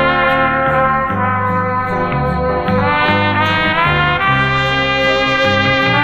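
Instrumental gospel arrangement led by trumpet over a brass ensemble, playing held notes above a moving bass line, with an upward slide in the upper line about three seconds in. The music comes from a worn vinyl record.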